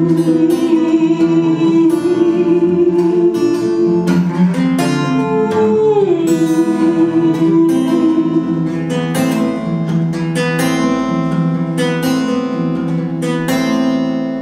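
Acoustic guitar strummed and picked, with a long held wordless vocal line over it whose pitch slides down once about six seconds in.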